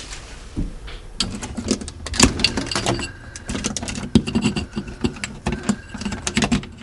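Rapid small clicks, knocks and scrapes of a wall power socket and its plastic faceplate being handled and worked with a screwdriver, over a faint low hum.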